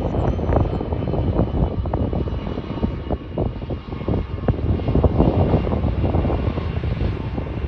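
Boeing 757-200 freighter's Pratt & Whitney PW2000-series turbofans running at low power as the jet taxis, a steady jet rumble with a faint turbine whine above it, under gusty wind rumble on the microphone.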